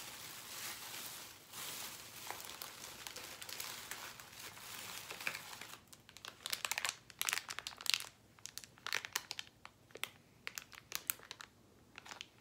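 Thin plastic packaging being handled and crinkled: a steady rustling for the first half, then a run of sharp crackles from about six seconds in.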